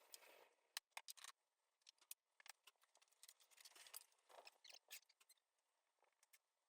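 Near silence, broken by faint scattered clicks and light handling noises.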